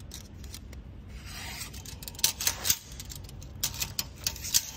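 Steel tape measure being drawn out and slid across steel frame tubing: a scraping rub of the blade about a second in, then two runs of sharp clicks and rattles from the blade and hook.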